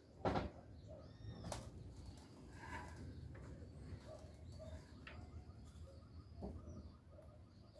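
Birds calling outdoors, with a few sharp knocks, the loudest about a third of a second in.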